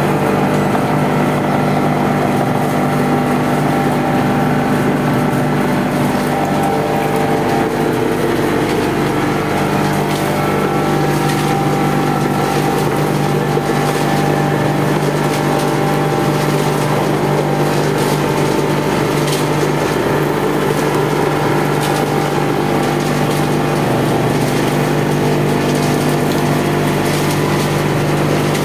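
Concrete-casting machinery running with a steady, loud motor drone and hum.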